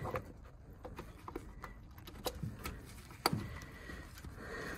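Sparse light clicks and taps of hand tools on metal as the thermostat housing's 8 mm bolts are worked loose.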